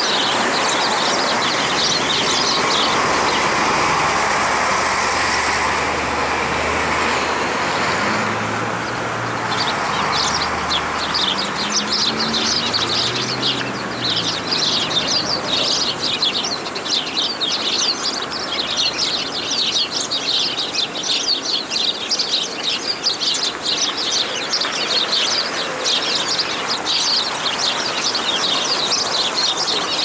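A flock of sparrows chirping in a dense, continuous chatter of short high chirps, thickest from about ten seconds in. Under it, over roughly the first eight seconds, a steady low rumble is louder.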